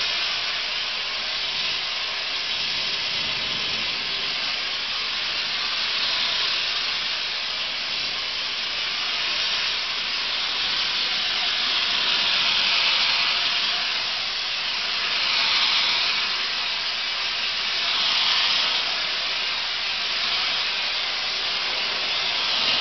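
Corn cob media blaster nozzle hissing steadily as compressed air drives ground corn cob against log walls to strip the wood surface. It swells louder a few times in the second half.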